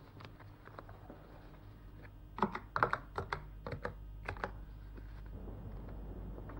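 A quick run of about a dozen sharp mechanical clicks and taps, like keys or small desk devices being pressed, bunched between about two and four and a half seconds in, over a low steady hum.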